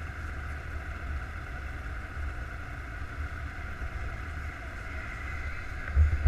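Snowmobile engines idling in a steady low rumble, with a brief louder burst near the end.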